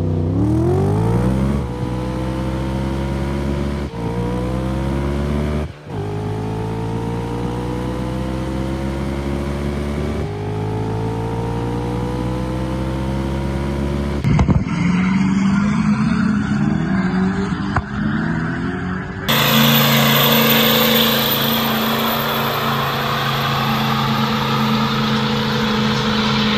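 A car engine accelerating hard through the gears: its note climbs and drops back at each upshift, four times in the first ten seconds. It then runs on at high speed, and a louder steady rush of noise comes in over a steady engine note in the second half.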